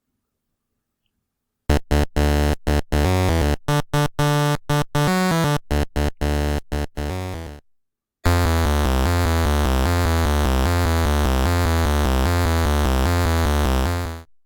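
Electronic background music. After a short silence, a run of choppy stop-start notes plays; then, after a brief break, a steady, evenly pulsing passage plays and fades out near the end.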